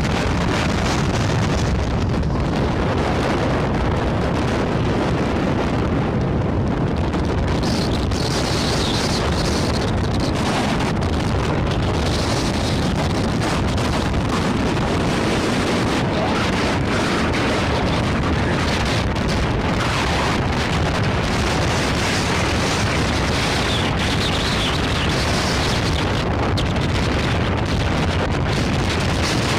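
Cargo jet's engines running at takeoff power, a steady loud rumble mixed with heavy wind buffeting on the microphone.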